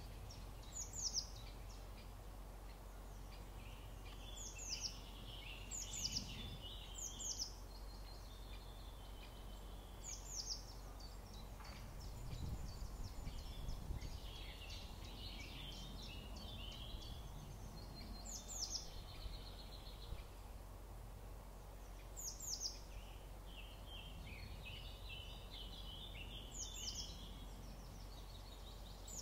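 Wild birds singing in a wetland field recording: short high calls that sweep downward, often in quick pairs, repeat every few seconds, with stretches of jumbled twittering song between them over a faint steady background.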